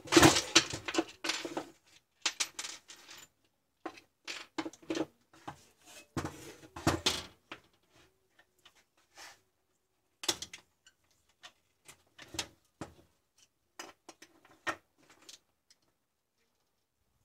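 Plastic handle housing of an angle grinder being handled and pulled apart on a workbench, with the switch and its wires lifted out: irregular clacks, knocks and scrapes of plastic, busiest in the first couple of seconds and again about six to seven seconds in, thinning out toward the end.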